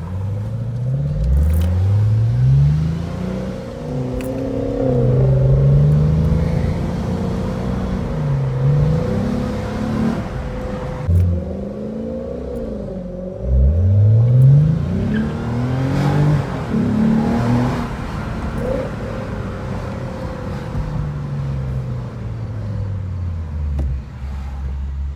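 Lexus RC350's 3.5-litre V6 with a new Greddy aftermarket exhaust, heard from inside the cabin while driving. The engine note climbs in pitch under acceleration several times and falls back between, with stretches of steady cruising. The exhaust sounds more aggressive than stock.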